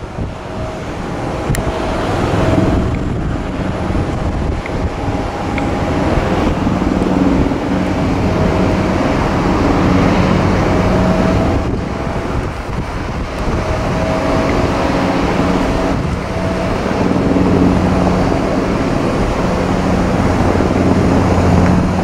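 Airbus A320 jet engines running as the airliner rolls along the runway after touchdown: a loud, steady rumble with a low hum that swells and eases.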